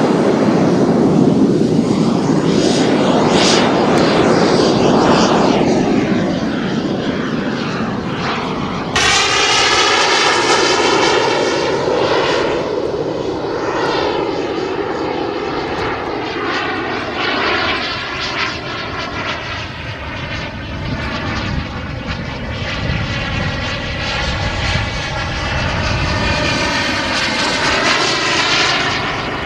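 Radio-controlled F-16 model jet flying, its jet engine running loud: a rushing pass with a rise and fall about three and a half seconds in, then after an abrupt change about nine seconds in a steady whine whose pitch wavers slowly as the jet circles overhead.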